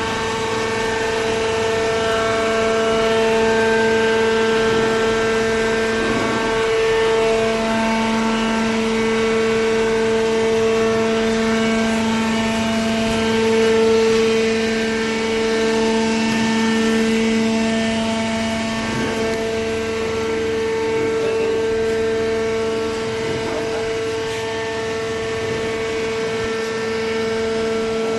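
Horizontal hydraulic paper baler running: a steady, loud machine hum with a constant low tone and its overtone, which swell and ease slightly as the press works.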